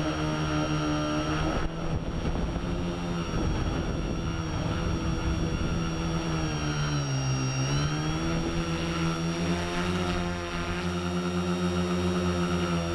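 A multirotor's electric motors and propellers whining steadily, heard from the onboard camera; the pitch drops and climbs back about seven seconds in as motor speed falls and rises.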